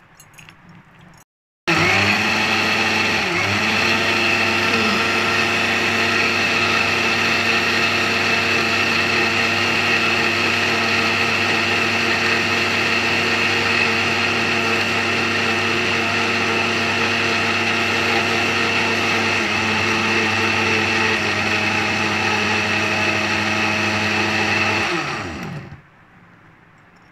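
Philips mixer grinder running at full speed, blending mango pieces, milk and ice in its steel jar: a loud, steady motor whine that starts abruptly about two seconds in and winds down, falling in pitch, near the end when it is switched off.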